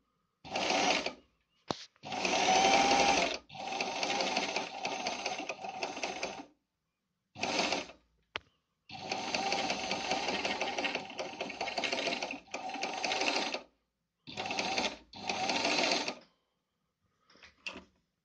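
Pfaff 294 sewing machine stitching a seam through fabric in a series of short runs, about seven of them, each lasting from under a second to about three seconds, with brief stops between. The loudest run comes about two to three seconds in.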